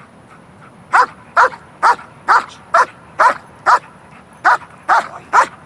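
A dog barking in a steady series of short, sharp barks, about two a second, starting about a second in with a brief gap near the middle: barking on command at a ball held out of reach, a bark-on-cue obedience drill.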